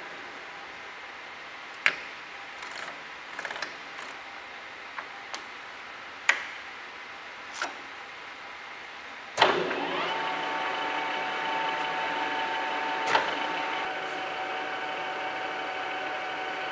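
Sharp clunks of the Kingston HL4000 engine lathe's headstock gear-selector levers being shifted. About nine seconds in, the lathe starts with a sudden jolt and spins up, then runs steadily with a whine from its geared headstock.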